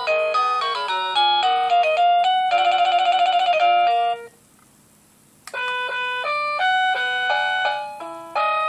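Dick Smith Y8450 wireless door chime playing its electronic melody tunes: a run of beeping notes ending in a fast warbling trill, a pause of about a second, a click, then another tune of beeping notes begins.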